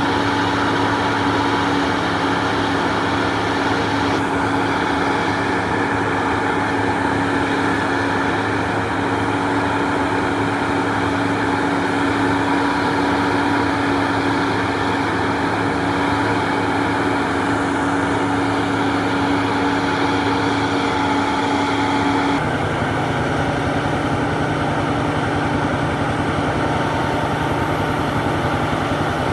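Heavy cotton-harvest machinery running steadily, an engine drone with a constant whine over it. The drone changes abruptly about three quarters of the way through, a new steady pitch taking over.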